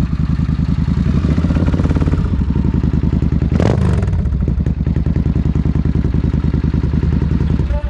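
V-twin cruiser motorcycle engine idling with an even, pulsing beat through its short chrome exhaust, blipped once in a quick rev about three and a half seconds in.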